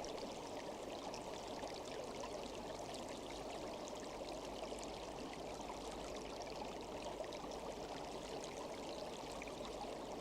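Steady running water of a stream, an unbroken background ambience of flowing water.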